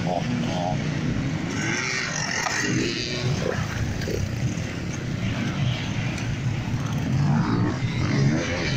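Several off-road enduro motorcycles riding past on a dirt track, engines running under throttle, growing louder near the end as another bike approaches.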